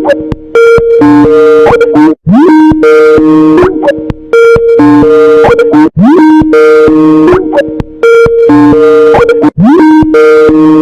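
Skype ringtone, bass-boosted and played very loud: its short two-note melody repeats about every four seconds, each repeat opening with a quick upward swoop.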